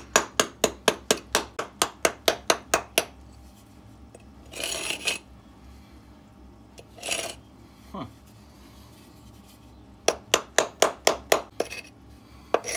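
Small hammer tapping rapidly on freshly laid quick-set cement over a concrete floor, about five light blows a second, stopping about three seconds in. Two short scraping sounds follow, then another quick run of taps near the end.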